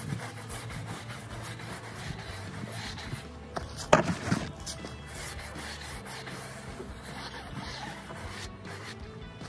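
A foam applicator rubbing and scuffing over the rubber sidewall of a pickup's all-terrain tire, with one sharper, louder knock-and-scrape about four seconds in.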